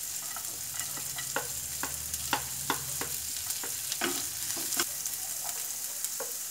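Sliced onions sizzling in butter in a nonstick pan over high heat, with a steady hiss. A wooden spatula stirs them, tapping and scraping against the pan at irregular intervals.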